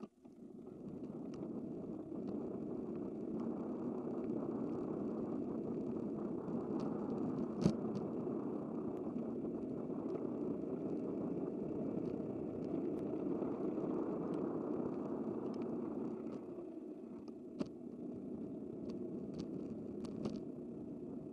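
Steady rushing road noise of a bicycle in motion, with scattered light clicks and one sharp knock about eight seconds in. It eases for a moment about two-thirds of the way through, then carries on.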